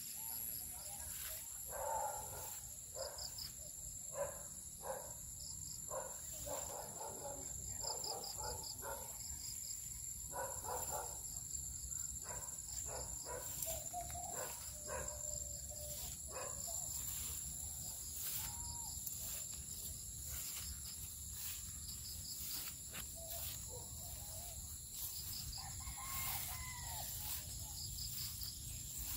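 Insects buzzing high and steady with a pulsing chirp, corn leaves rustling and crackling as they are brushed past, and chickens calling, with a rooster crowing near the end.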